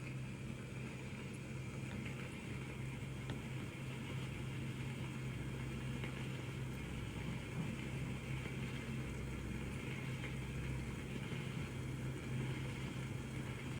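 Facial steamer running, a steady low hum over a faint even hiss.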